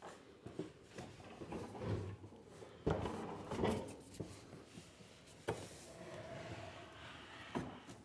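Handling noise: scattered knocks, bumps and scrapes, as a compact fridge is moved by hand. The loudest knock comes about three seconds in.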